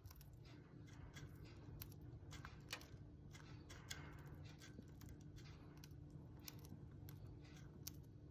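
A small pet crunching its food: quiet, irregular crackling clicks, like a bonfire crackling, over a faint steady hum.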